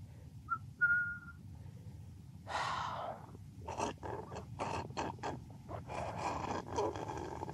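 A man drinking juice noisily, with a run of irregular slurps, gulps and breaths. Near the start there is a short, high, whistle-like tone.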